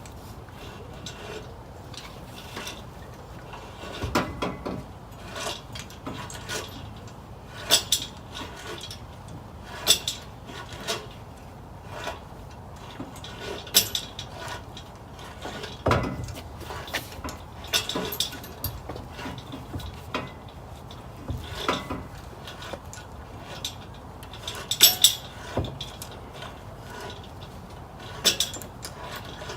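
Irregular metallic clinks and clanks of hand tools and parts during engine and transmission removal on a Volvo 240, some sharp knocks standing out above a low steady background.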